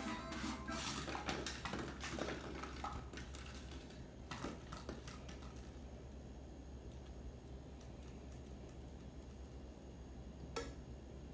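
Light clicks and knocks of a small toy pumpkin being batted across a hard floor by cats. They come thick for the first few seconds, then thin out, with a single knock near the end.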